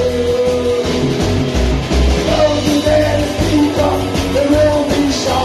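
Live psychobilly band playing loud: electric guitar, upright double bass and drum kit, with a voice singing held notes over the pounding low end.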